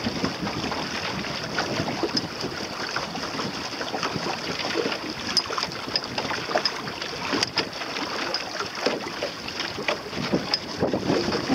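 Water splashing and lapping against a sailboat's hull as it moves along, with wind buffeting the microphone. Small irregular splashes come through a steady rush of noise.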